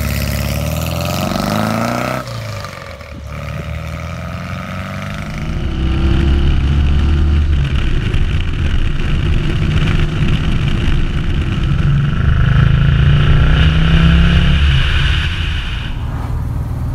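1964 Porsche 356 C's uprated air-cooled engine under way on the road. The revs rise over the first two seconds and break off abruptly; the engine then runs on steadily and grows louder, easing off near the end.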